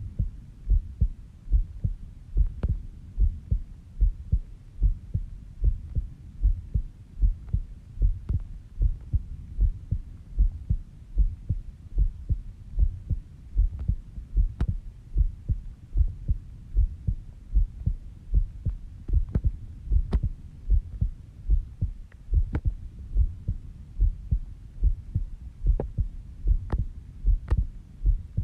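A person's heartbeat in a steady, slow lub-dub rhythm at a resting rate of about 70 beats a minute, recorded during sleep, with occasional faint clicks.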